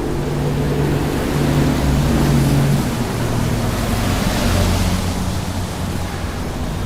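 Highway traffic passing at the roadside: a continuous rush of tyre and engine noise, with a heavy vehicle's low engine note in the first three seconds and a vehicle sweeping past about four to five seconds in.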